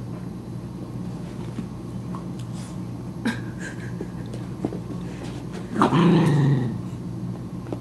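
Dog growling once during rough play, a short loud growl just under a second long about six seconds in, over a steady low hum.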